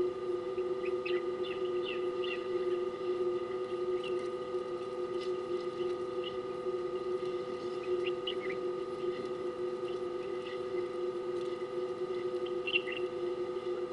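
Short, scattered bird chirps in small clusters over a steady, even hum made of several fixed tones.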